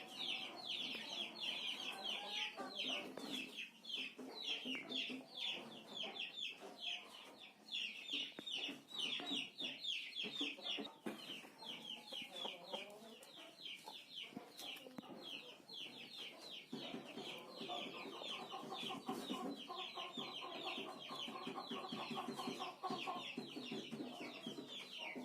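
Chickens calling quietly: a steady stream of rapid, high falling peeps, with lower clucking calls that grow stronger about two-thirds of the way through.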